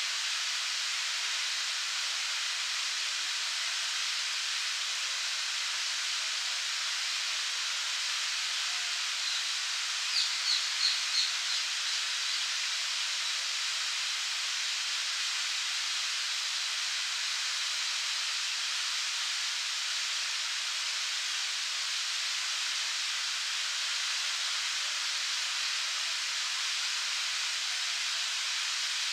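Park fountain jet falling back into its pond: a steady hiss of splashing spray. About ten seconds in, a bird gives a quick run of about five high chirps.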